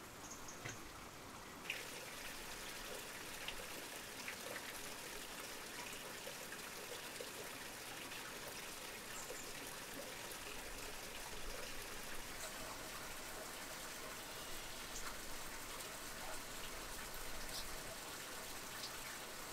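Steady, faint water noise with scattered small ticks; a brighter hiss comes in about two seconds in.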